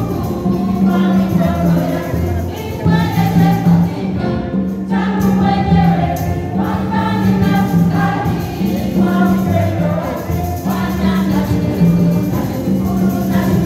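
A choir singing a gospel song, steady and continuous.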